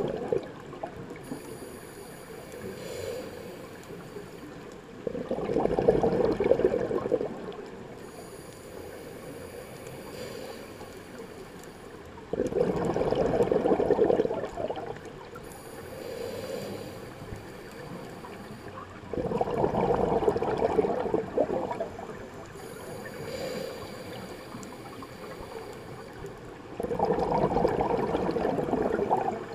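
Underwater scuba breathing: exhaled bubbles from a diver's regulator gurgle in four loud bursts about seven seconds apart, each lasting about two seconds, with a softer swell between each.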